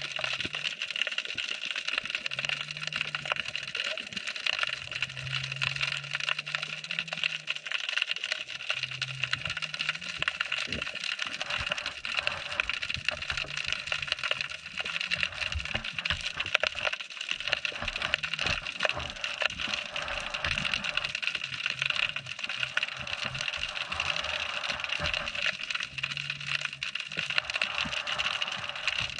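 Underwater crackle: a constant fizz of many tiny clicks, the sound of snapping shrimp, picked up by a submerged camera. A low hum comes and goes underneath.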